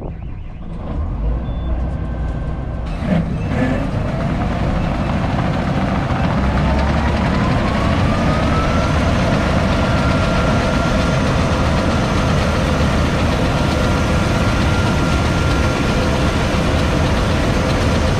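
John Deere combine harvester running under load while harvesting black beans, a dense steady mechanical noise of engine and threshing machinery. A whine climbs in pitch over about five seconds a few seconds in, then holds steady.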